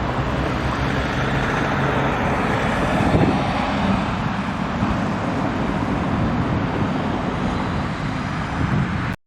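Steady rumble of traffic or a moving vehicle, an even noise with most of its energy low down, which cuts off abruptly near the end.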